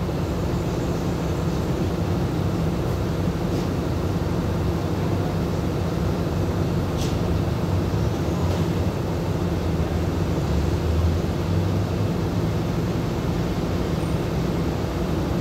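Diesel passenger train standing at a station platform, its engine idling with a steady low drone.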